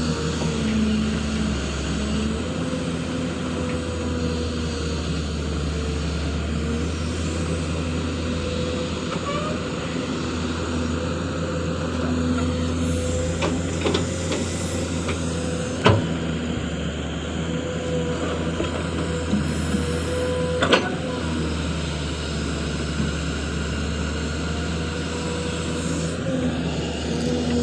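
Excavator's diesel engine running steadily with a wavering hydraulic whine, and a few sharp knocks, loudest about 16 s and 21 s in.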